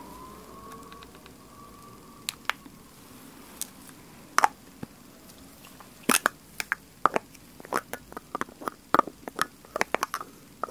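Long fingernails tapping and clicking on a plastic makeup-primer bottle right at the microphone, ASMR-style. The taps come only now and then at first, then quicken to several a second from about six seconds in.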